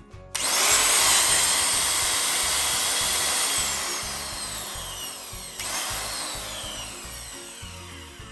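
Bosch GDM 13-34 marble cutter's 1300 W motor run with no blade fitted. It whines up to full speed almost at once, runs about three seconds, then winds down in a falling whine. It is triggered again briefly about five and a half seconds in and winds down once more.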